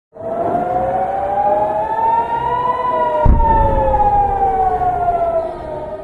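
Civil-defence air-raid siren wailing, its pitch rising slowly for about three seconds and then falling; it warns of incoming rocket fire. A low thump about three seconds in.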